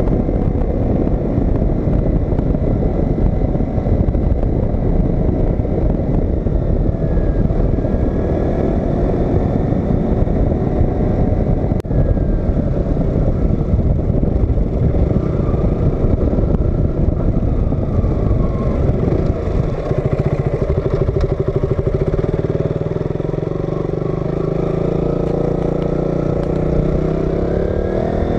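KTM RC 200's single-cylinder four-stroke engine running as the bike is ridden, under heavy wind and road noise. Near the end the engine note rises as it accelerates.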